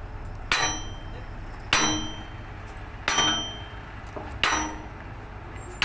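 Hammer blows on a steel pipe driving out a stuck excavator bucket pin: ringing metal clangs about every second and a quarter, four of them with a fifth right at the end.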